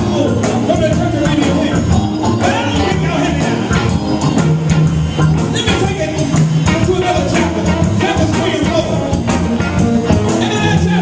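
Live blues band playing with a steady beat: drums, bass and electric guitar.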